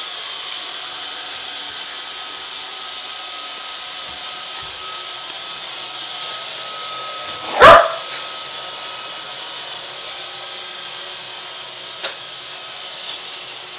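Roomba robot vacuum running with a steady hum and a thin whine, and a single loud dog bark about eight seconds in.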